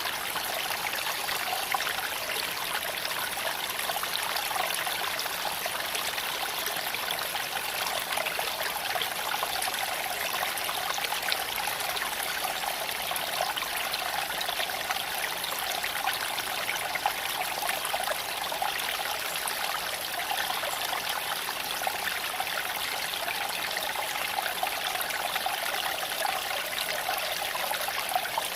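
A shallow creek flowing and trickling over stones in an even, unbroken wash, with a few faint sharp clicks scattered through it.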